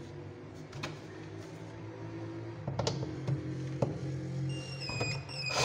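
Cordless DeWalt drill/driver turning the adjustment screw of a concealed cabinet hinge to lower the door. The motor runs slowly with a low steady hum and a few sharp clicks, and a short higher whine joins near the end.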